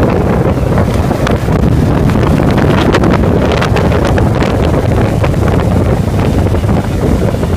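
Wind buffeting the microphone of a camera on a moving motorcycle, loud and steady, over a low drone of motorcycle engines, with a few short crackles of wind about three to four seconds in.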